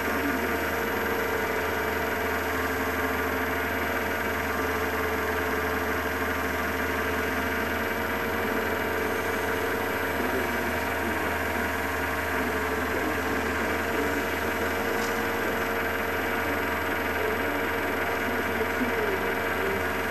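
Wood lathe motor running at a steady speed, an even hum, while a cloth is held against the spinning wooden candlestick to apply finish.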